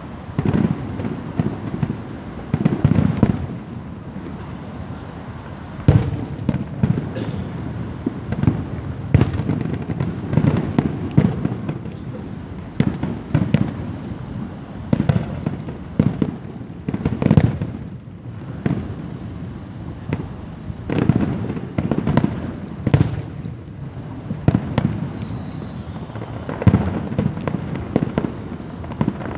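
Fireworks display: aerial shells bursting one after another, a dense run of booms and bangs with echo, several a second at the busiest moments.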